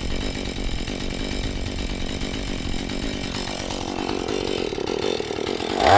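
Husqvarna 435 two-stroke chainsaw running at a steady idle, then revving up near the end.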